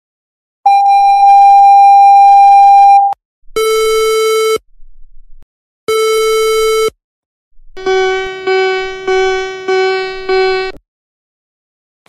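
Emergency alert tones played back loud: a steady electronic tone held for about two and a half seconds, then two separate lower beeps of about a second each, then a run of five quick ringing tones about half a second apart that each fade.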